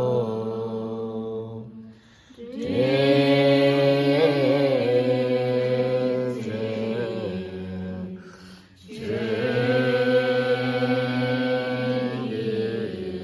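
Group of Tibetan Buddhist devotees chanting a supplication prayer in unison in long, drawn-out phrases, breaking off briefly about two seconds in and again after about eight and a half seconds.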